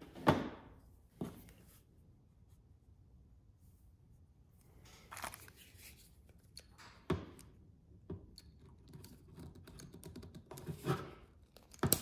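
Knocks and clicks of hand tools being handled and set down on a workbench, the loudest a sharp knock just after the start. Near the end a click or two as a utility lighter is sparked alight.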